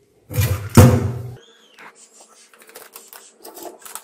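Small metal gas-regulator parts clattering into a stainless-steel bowl: two loud clanks about half a second and a second in, then lighter clinks and taps.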